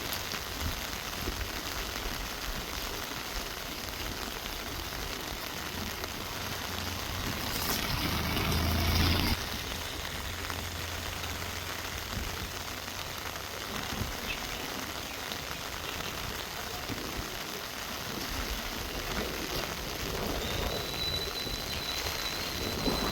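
Steady monsoon rain falling on trees. A low rumble builds about a third of the way in and cuts off suddenly; near the end a thin, high steady tone sounds for a couple of seconds.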